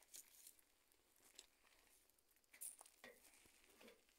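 Near silence, with a few faint, scattered rustles.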